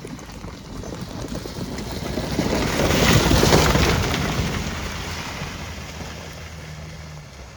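Dacia Duster 4x4 driving through mud, its engine and the churning and splashing of its tyres swelling to a peak about three seconds in, then fading as it moves away.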